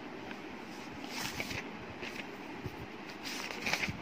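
Paper pages of a textbook being turned, rustling in a few short bursts, once about a second in and again near the end.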